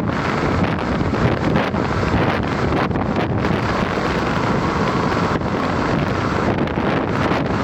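Wind buffeting the microphone: a loud, steady rushing rumble with no distinct events.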